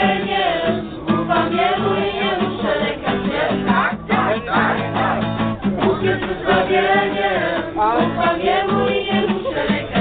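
A group of young voices singing a Polish worship song together, accompanied by an acoustic guitar.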